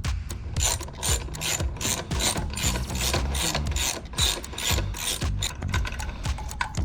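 Background music with a steady, fast beat and crisp clicking percussion over a bass line.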